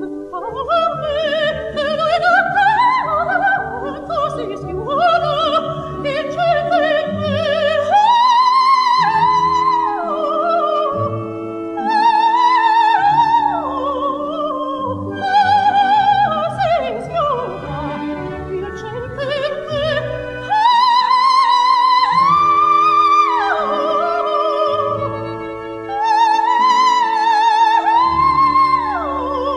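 Coloratura soprano singing an operatic cabaletta with a full orchestra: quick climbing runs and long held high notes with a wide vibrato, over sustained strings and bass notes.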